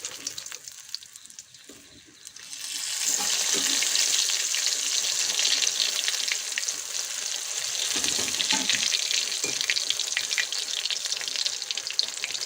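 Battered shrimp-head fritters deep-frying in hot oil: a faint crackle at first, then about three seconds in a loud, steady sizzle full of fine crackles.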